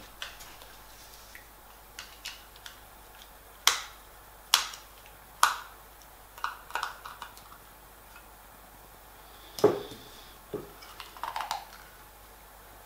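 Sharp plastic clicks and taps from a small screwdriver prying at the cover of a battery-powered LED string light's plastic battery box. Three loud clicks come about a second apart near the middle, then scattered smaller taps and one duller knock.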